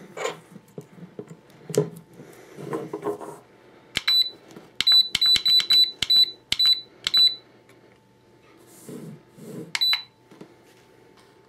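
Plastic connectors clicking and handled, then the G.T. Power X-Charger B6 balance charger giving short, high beeps with each button press, about ten in quick succession, and one more near the end as the internal-resistance test starts.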